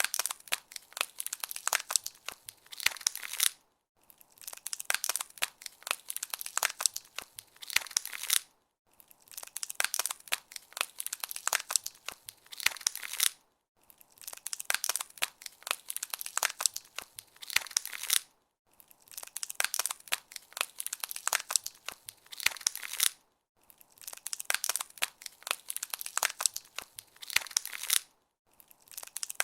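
Ice-crackling sound effect of liquid freezing: dense, fast crackling clicks, mostly high-pitched, in runs of about four to five seconds broken by brief silent gaps, repeating about six times.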